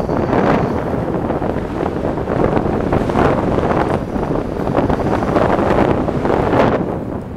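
Wind buffeting the microphone of a camera riding on a moving electric scooter: a loud, gusty rush that swells and fades every second or so and eases a little near the end.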